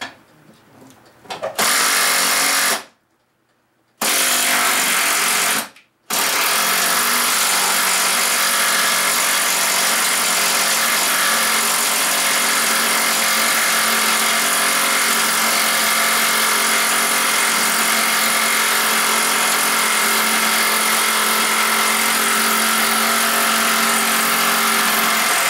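Cordless impact driver running on a bolt in three trigger pulls: a run of about a second, a second run of a couple of seconds, then one long steady run of nearly twenty seconds.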